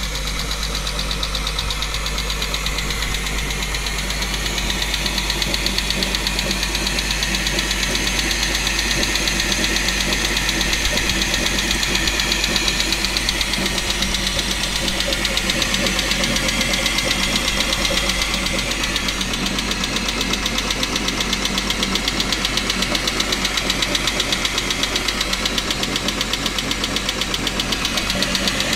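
Chrysler 300M's 3.5-litre V6 engine running with a steady, rapid knocking rattle.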